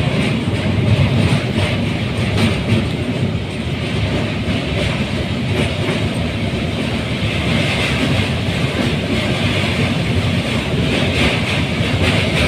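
Train running across a steel truss bridge, heard from inside the carriage: a steady low rumble with irregular wheel clatter over the rails, and a brighter hiss coming up from about seven seconds in.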